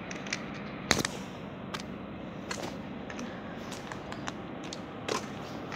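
Boot footsteps crunching on a railway platform strewn with de-icing granules, a short gritty crunch roughly every second, the sharpest about a second in, over a steady background hiss.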